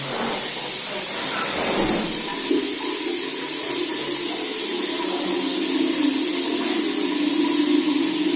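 Overhead rain shower head running: a steady hiss of water falling from the wide head onto the shower floor.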